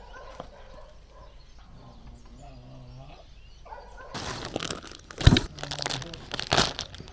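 A single drawn-out animal call, then a few seconds of crunching and crackling with one sharp knock in the middle.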